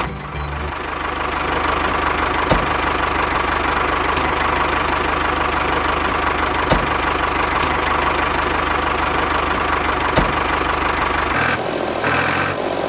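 A small motor running with a steady drone, with three sharp clicks spaced a few seconds apart.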